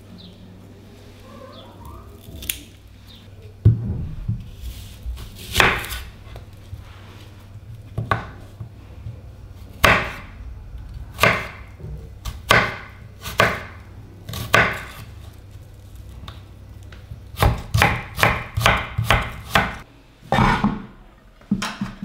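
Knife slicing an onion on a wooden cutting board: single chops about every second, starting a few seconds in, then a quicker run of about eight chops near the end. A steady low hum runs underneath.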